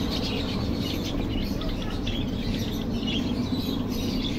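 Many small birds chirping at once, a dense steady chatter of short high chirps, over a steady low hum.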